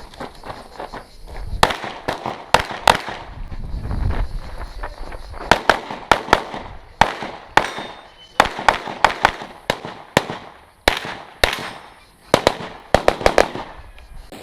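Handgun shots fired in quick pairs and short strings, with brief pauses between them: a practical-shooting course of fire.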